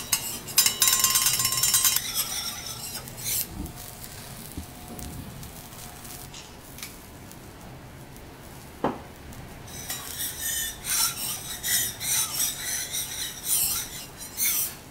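Metal teppanyaki spatulas scraping and clinking on a steel griddle: a loud run of rapid, even scrapes about a second in, then quieter, then another busy stretch of scraping and clinks in the last few seconds.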